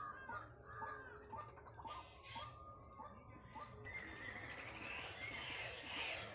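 Birds calling outdoors. A string of short repeated calls fills the first two seconds, and a thicker mix of chirps takes over from about four seconds in.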